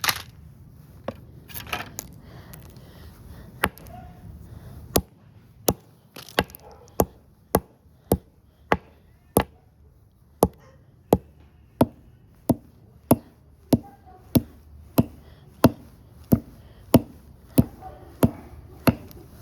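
Repeated sharp blows smashing a small plastic toy remote-control car. The blows are scattered at first, then fall into a steady beat of about three every two seconds.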